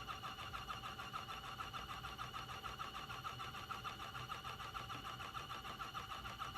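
Fluke 729 pressure calibrator's built-in electric pump running with a rapid, even pulsing buzz, building pressure toward a test set point during an automatic calibration test.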